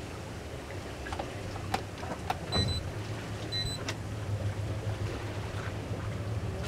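Towboat's engine running steadily under way while towing, with water and wind noise over it. A few sharp clicks and two short high beeps come in the first half.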